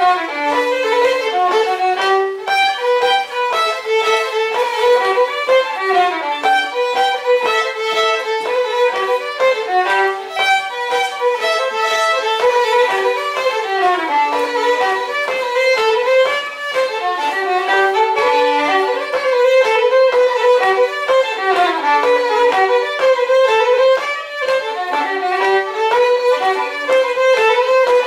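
Fiddle playing a folk dance tune, a continuous melody of quick notes, accompanying a line dance.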